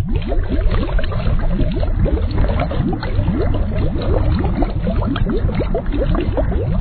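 Dense, continuous underwater bubbling and gurgling, many small bubbles over a steady low rumble.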